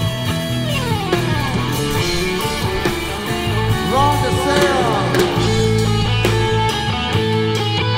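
Live rock band playing, led by an electric guitar solo on a single-cutaway guitar over bass and drums. The lead line makes a long downward slide about a second in and wavering string bends around the middle.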